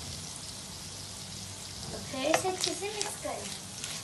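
Minced meat (keema) sizzling steadily in oil in a kadhai over a low flame while a wooden spatula stirs it, with a few sharp scrapes about two seconds in.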